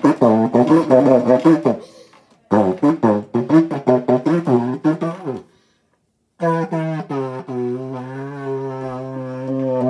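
A saxophone blown through a length of pipe fitted in place of its mouthpiece, sounding three low notes: two short ones that waver in pitch, then a long steady low drone of about four seconds. Working the keys barely changes the note.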